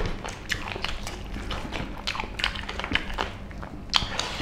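Eating by hand: wet mouth smacks and chewing of meat curry and rice, with fingers squelching rice on plates, heard as a run of short, irregular clicks.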